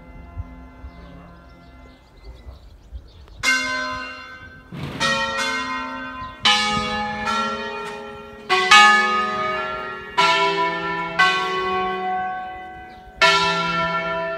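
A five-bell church ring in E, cast by De Poli in 1949, rung by hand from ropes. After a faint fading hum, about eight separate strokes come in from about three seconds in, on bells of different pitch, each ringing on and overlapping the next.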